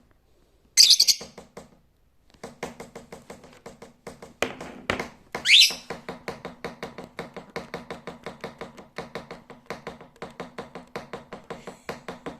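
Lovebird giving two loud, shrill chirps, the second one rising, over a fast, even ticking that runs from about two seconds in.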